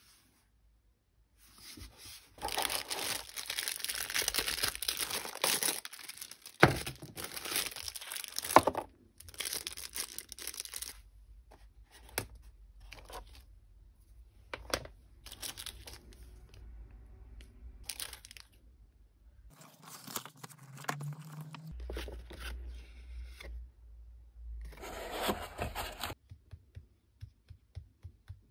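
Unboxing a graphics tablet by hand: plastic packaging bags and a cardboard box rustling and crinkling, loudest in the first ten seconds or so, with two sharp knocks about seven and nine seconds in. After that come scattered quieter rustles and handling clicks.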